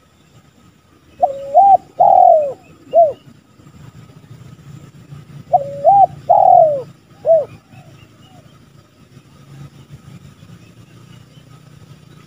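Spotted dove cooing: two phrases of three or four notes each, about four seconds apart. Each phrase is a level note that bends up, then a long falling note and a short final note.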